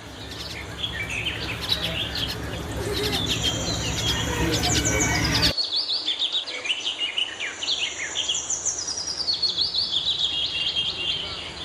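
Many small caged birds chirping and trilling together in quick, overlapping high calls. A steady low hum and murmur of voices under them stop abruptly about halfway through.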